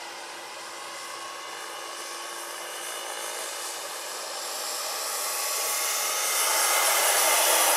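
Turbine-powered scale model AS-332 Super Puma helicopter (about 1/8 scale, 2 m rotor) in flight: the steady whine of its turbine over a rushing noise, growing louder toward the end as it passes closer.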